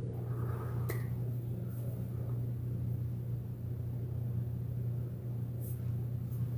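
Room tone: a steady low hum, with a faint click about a second in.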